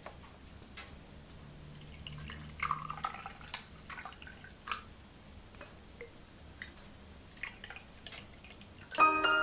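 Scattered light clicks and small knocks over a faint low hum, a little denser around the third second. Piano music begins near the end.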